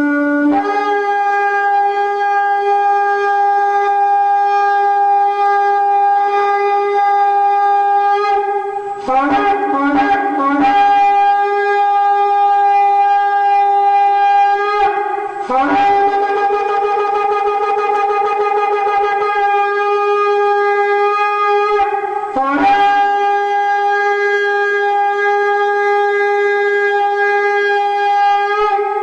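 A horn blown in long, loud held blasts. Each blast starts on a brief lower note and jumps up to a higher note that is held for several seconds. Four long blasts are separated by short breaks, with a couple of short notes in the gap about nine seconds in.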